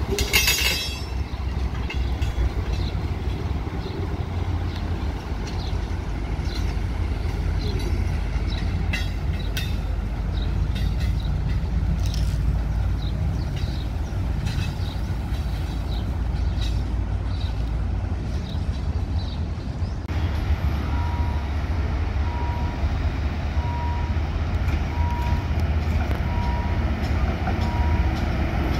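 HAS-class diesel shunting locomotive running with a steady low engine rumble as it moves a KiHa 183 series railcar, with wheels clicking over the rails. A brief hiss right at the start, and a faint beep repeating about once a second over the last third.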